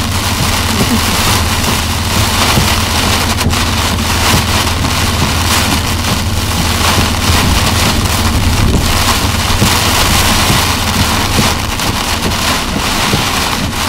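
Heavy rain hitting the roof and windshield, heard from inside a tow vehicle's cab, over a steady low drone of engine and tyres on the flooded road.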